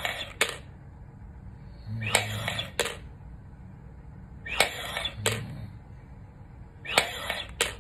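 Repeated hard inhalations through a three-ball incentive spirometer, about three in a row spaced a couple of seconds apart. Each is a short rush of air through the mouthpiece, with sharp plastic clicks as the balls jump up and drop back, and a brief low hum of effort just before. This is a lung-recovery breathing exercise after bypass surgery, and the breaths lift only two of the three balls.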